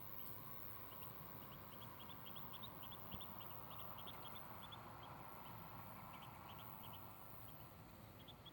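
Muscovy duckling peeping faintly: a steady run of short, high peeps, several a second, over a soft background hiss.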